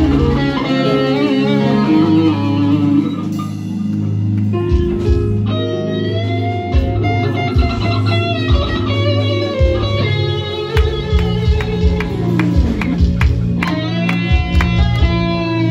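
A live church band plays an instrumental passage: electric guitar leads over bass, keyboard and drums.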